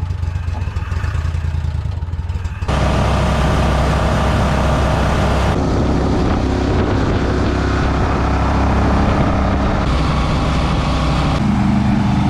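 Air-cooled surface-drive mud motor on a jon boat running under way, with a steady low engine note that gets louder about three seconds in.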